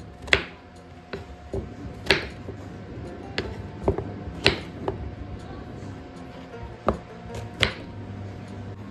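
A knife chopping through slices of bottle gourd onto a wooden cutting board: about six sharp knocks at uneven intervals, over soft background music.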